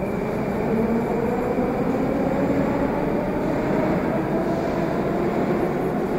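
Moscow metro train running past the platform out of view: a steady rumble of wheels on rails with a motor whine that rises in pitch as it picks up speed.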